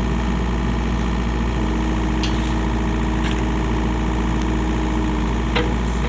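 Excavator's diesel engine running steadily, with a few light knocks.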